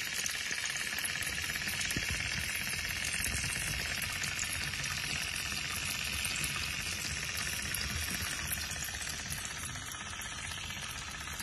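Dry china clay chunks soaking in water, fizzing and crackling continuously as air escapes from the clay in tiny bubbles while it breaks down, easing slightly near the end.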